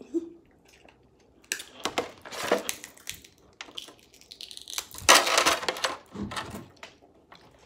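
Cooked crab cluster shells being cracked and snapped apart by hand, in bursts of crackling and snapping, the loudest about five seconds in.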